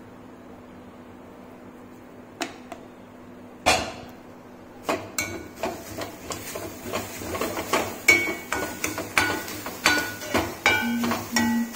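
A steel spatula scraping and clinking against a black kadai as grated carrot and coconut are stirred, with a short metallic ring on many strokes. It is fairly quiet at first, with one sharp knock about four seconds in, then quick repeated strokes from about five seconds on.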